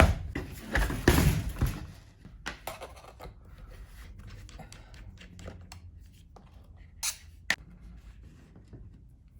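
Hands handling small hard parts: a burst of clattering in the first two seconds, then scattered light clicks and knocks, with two sharp clicks near the end.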